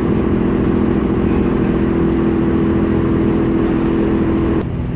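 Ferry's engine running with a steady low drone and hum, which cuts off suddenly near the end, leaving a quieter rumble.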